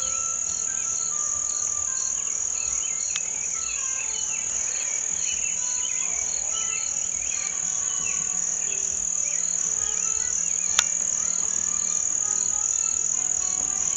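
Steady, high-pitched drone of insects chorusing without a break. A single sharp click comes about eleven seconds in.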